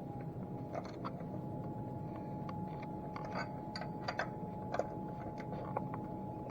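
Scattered light clicks and taps of hand tools and metal parts being handled on a small engine, over a steady hum and a constant high-pitched tone.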